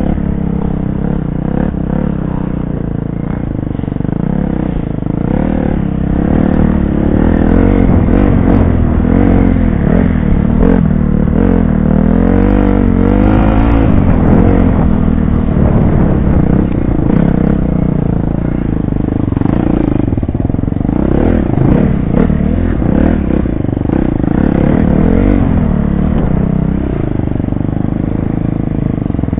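Off-road dirt bike engine revving up and down continually as it is ridden along a rough woodland trail, pitch rising and falling with the throttle, with some clatter from the bike.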